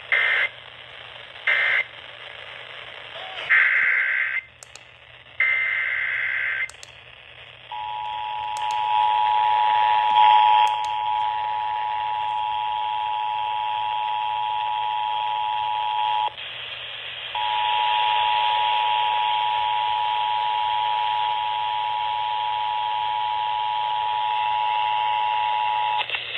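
Emergency Alert System signalling over a weather radio's static hiss. First come three short screeching SAME data bursts, then two longer ones. After that a steady two-tone attention signal sounds for about eight seconds, drops out for a second, and sounds again until just before the next alert's voice starts.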